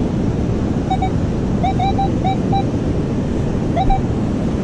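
Metal detector giving about seven short mid-pitched beeps, each with a slight upward chirp at its start, as it sounds on a coin target still in the dug hole. Steady surf and wind noise runs under it.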